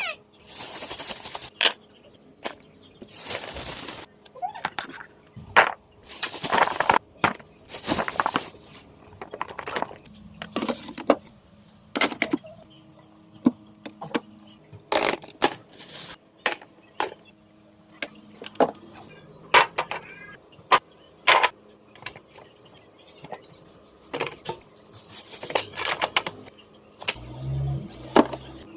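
Food containers and packets being handled in a refrigerator: irregular clatters, knocks and rustles throughout, over a faint steady hum.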